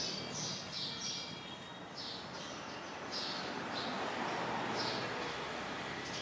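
Small birds chirping: a string of short, high chirps repeated every half second to a second over a low steady background hiss.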